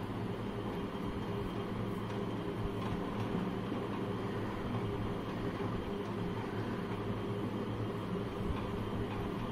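Steady low mechanical hum with a layer of hiss, unchanging throughout.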